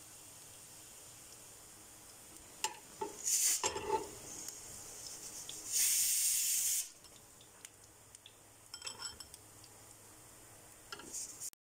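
Metal slotted spoon clinking and scraping against a frying pan and a mesh strainer as fried grated carrots are scooped out of hot oil, over a faint steady sizzle. About six seconds in, a louder hissing rush lasts about a second.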